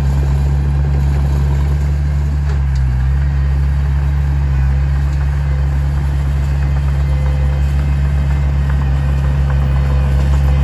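Heavy earthmoving machine's diesel engine running steadily with a deep low drone, dipping briefly about three seconds in.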